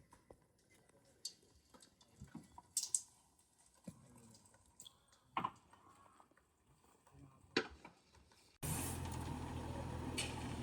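Faint scattered clicks and taps, then, near the end, an abrupt start of a steady machine running with a low hum.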